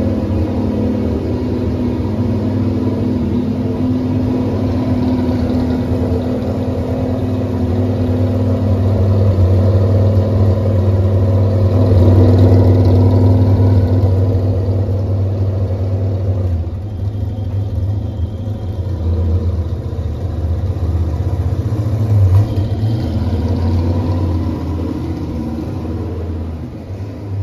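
Euro NASCAR stock car's V8 engine running steadily with a deep, even rumble, warming up at its first start of the season. About two-thirds of the way through there is one short throttle blip.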